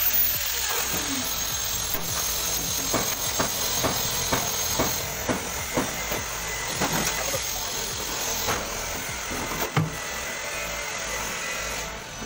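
Steady hiss with scattered light knocks and taps as tools and metal are handled on a galvanized steel gutter box, the angle grinder set down between hole cuts.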